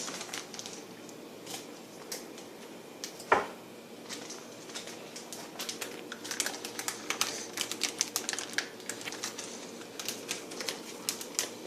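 Small plastic MRE ration packets being handled and sorted, giving quick light crinkles and ticks that come thick and fast in the second half, with one sharper knock about three seconds in.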